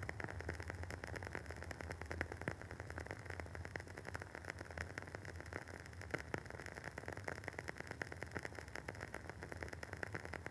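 Wooden wick of a WoodWick candle burning with a dense, irregular crackle of small pops over a steady hiss.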